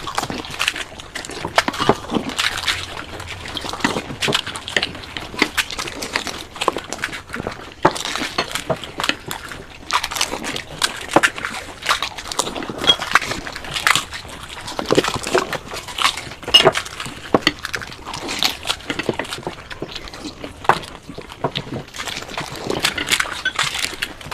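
Close-up sounds of people eating panipuri quickly: crisp puri shells cracking and crunching, with slurps of the sour water and chewing, in quick irregular bursts.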